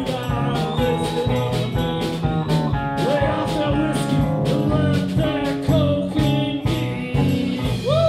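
A live bar band playing a country-blues rocker: electric guitars over a drum kit keeping a steady beat, with notes bending up and down above the rhythm.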